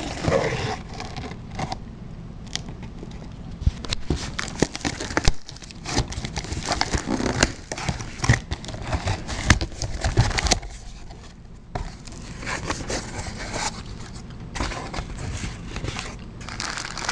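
Clear packing tape being peeled and torn off a cardboard shipping box by hand, with irregular crackling and scraping. Near the end, plastic air-pillow packing crinkles as it is handled.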